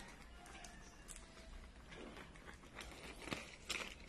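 Scissors snipping through a plastic courier pouch, faint and irregular, with the plastic crinkling between cuts.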